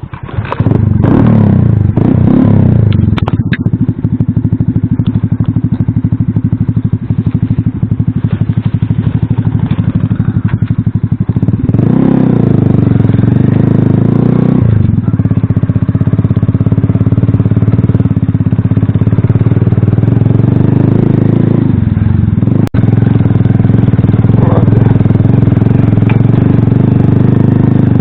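Small single-cylinder four-stroke engine of an Alpha moped-style motorcycle running under load as it is ridden over rough forest ground. The revs climb sharply about twelve seconds in and drop back a few seconds later, then rise again towards the end, with a single sharp click just after that.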